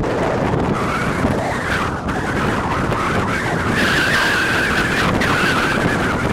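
Wind buffeting the microphone in a loud, steady rumble, with a wavering higher-pitched sound over it from about a second in that grows stronger in the second half.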